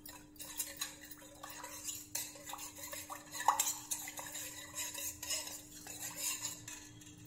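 A spoon stirring coconut milk with sugar and cornflour in a pan, scraping and clinking irregularly against the pan's sides and bottom as the cornflour is mixed in before cooking.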